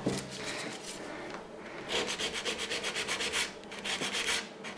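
Hand nail file rasping back and forth across the edge of a fingernail in quick, even sawing strokes, about six a second. A few light strokes come first, and the steady run starts about two seconds in.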